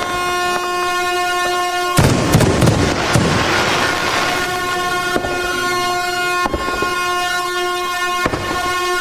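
A steady air horn tone over fireworks. Sharp bangs go off four times, the first about two seconds in, followed by a burst of crackling.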